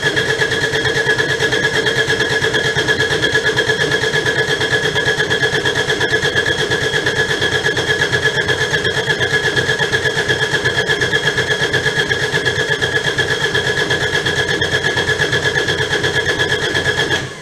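Kubota D722 three-cylinder diesel being turned over on its electric starter, with a steady starter whine and an even pulsing beat, cranking without catching. The cranking is meant to push air out of the fuel system after the injection pump was refitted. It stops abruptly at the end.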